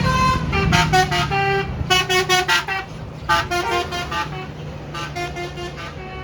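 Tour bus 'telolet' (basuri) multi-tone horn playing a jingle of short notes stepping up and down in pitch, in about five bursts that grow quieter toward the end, over the steady low hum of a bus engine.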